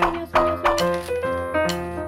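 Background music: a light melody of short, separate notes, a new note every few tenths of a second.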